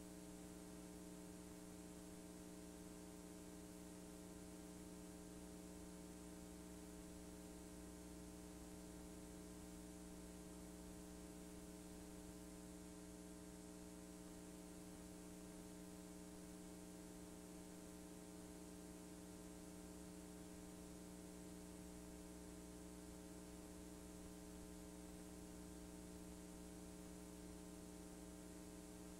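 Near silence: a faint, steady electrical hum with a light hiss, the noise of a blank stretch of a VHS-C tape transfer.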